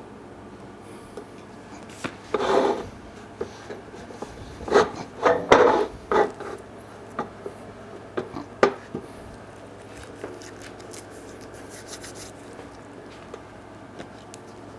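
A run of short scraping and rubbing sounds mixed with a few knocks, like objects being slid and handled on a wooden surface, the loudest in the middle. Fainter ticks follow.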